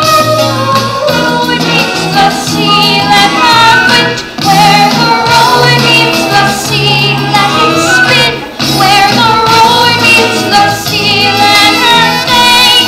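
Young singers, a choir of children with female voices, singing a musical-theatre song over a backing accompaniment.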